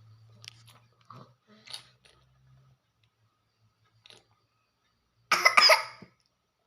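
A baby coughing in a short, sharp run about five seconds in, sputtering on plain water that went down the wrong way while drinking.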